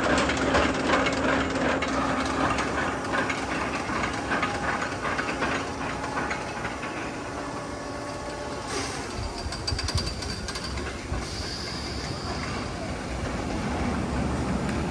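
Suspended steel roller coaster train running along its track, loudest as it passes close, then fading as it travels away.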